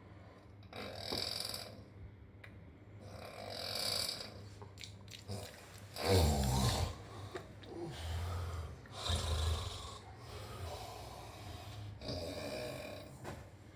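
A sleeping person snoring, with breaths every few seconds. The loudest snore comes about six seconds in and falls in pitch.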